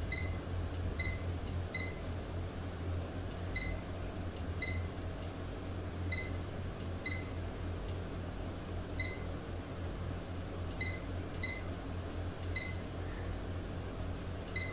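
A digital thermometer-hygrometer beeping briefly with each button press as its date is set: about a dozen short high beeps at uneven intervals, some in quick pairs. A steady low hum runs underneath.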